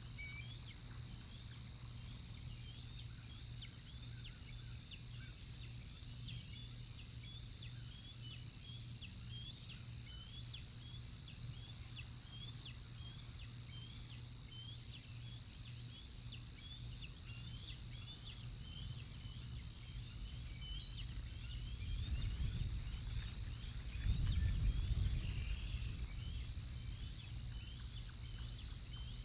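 Faint, high, short bird chirps repeating about once or twice a second over a steady outdoor background. A low rumble swells briefly about three-quarters of the way through.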